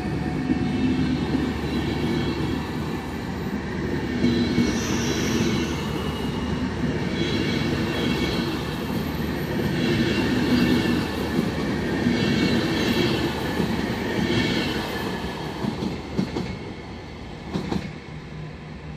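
Express passenger train hauled by an EU44 electric locomotive running past at speed: a steady rumble of coaches with a regular clatter of wheels over the rails every second or two. A few sharp knocks come near the end, and the sound falls away as the last coach passes.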